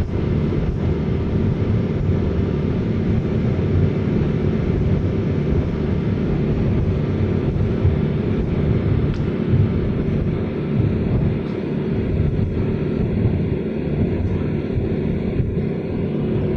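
Suzuki 250 outboard motors running steadily at speed, with wind buffeting the microphone and water rushing past the hull.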